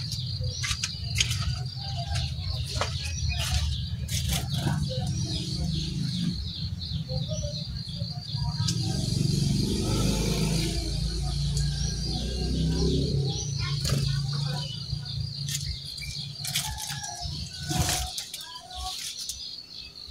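Brown-chested jungle flycatcher singing: scattered short chirps and whistles over a steady high buzz and a low rumble that drops away near the end, with frequent sharp clicks.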